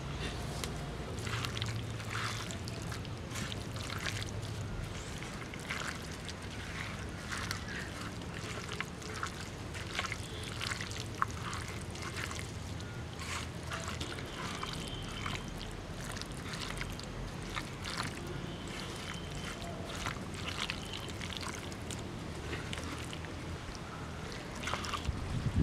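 A bare hand kneading raw chicken pieces in a yogurt, onion and spice marinade in a clay plate: irregular wet squelches and squishes throughout, over a steady low hum.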